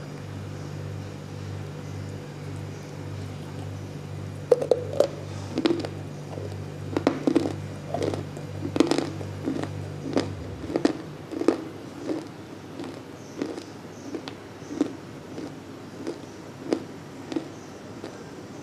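Multani mitti (fuller's earth clay) being bitten and chewed: sharp, dry crunches, irregular, about one or two a second, starting about four seconds in. A low steady hum runs underneath and stops about halfway through.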